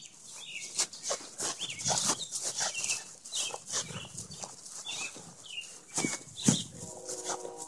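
A chase across grass: irregular thuds and rustling from running footfalls and a jostled camera, with short chirps in the background. A steady hum comes in near the end.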